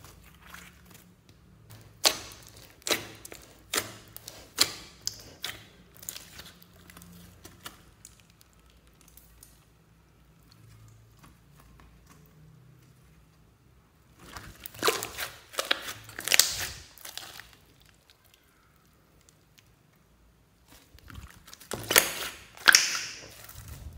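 Hands pressing and kneading glossy slime mixed with foam beads: sticky squelches and sharp clicking pops, in three bouts with quiet spells between.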